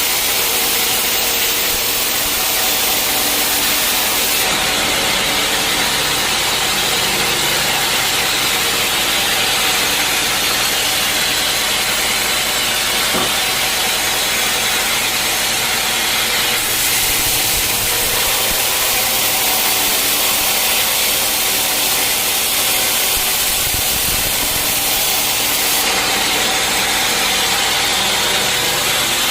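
Sawmill blade cutting steadily through a teak log over the steady running of the mill's motor, with a loud sawing hiss that shifts in strength a few times.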